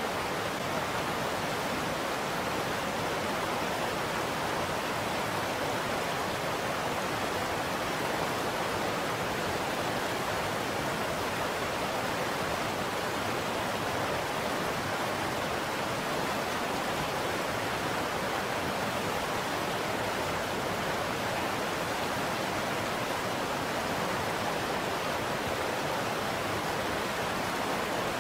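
Steady rushing of flowing river water, an even noise with no change throughout.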